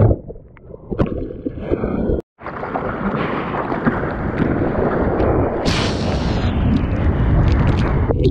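Rushing, splashing seawater and wind on an action camera's microphone at the surface of breaking surf, picked up beside a bodyboard. The sound is quieter for the first couple of seconds, cuts out completely for a moment about two seconds in, then stays a loud, steady wash of water.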